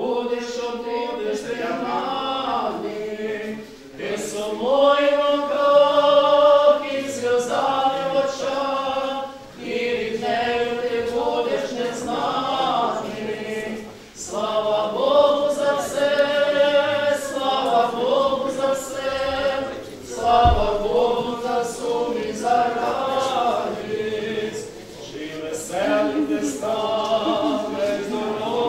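A group of voices singing a church hymn unaccompanied, in slow drawn-out phrases a few seconds long with short breaks between.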